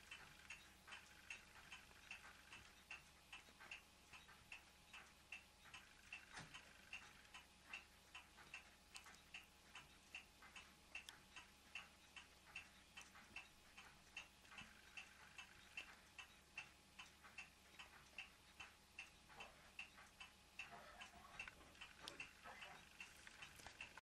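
Faint, steady ticking, evenly spaced at about two to three ticks a second.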